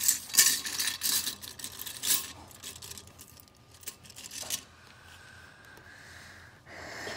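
Loose plastic Lego pieces rattling and clattering in a bowl as a hand rummages through them. The clatter is busiest in the first couple of seconds, a few more clicks come about four seconds in, then it goes quieter.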